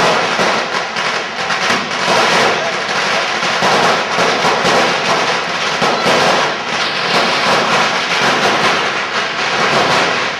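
Many firecrackers going off at once in rapid, overlapping succession, making a dense, unbroken crackle.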